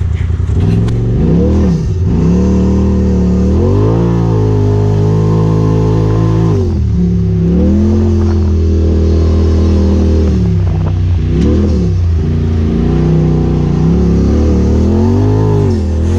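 Turbocharged Polaris RZR side-by-side engine revving up and down under throttle while driving off road, its pitch rising and falling several times.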